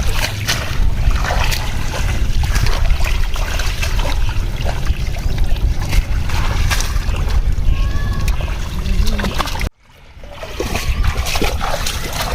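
Water splashing and sloshing in irregular bursts, over a steady low rumble. The sound drops out suddenly for a moment about ten seconds in.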